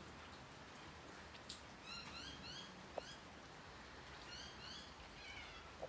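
Border collie whining softly: two runs of short, high-pitched whimpers, several a second, starting about two seconds in. A couple of light clicks come before them.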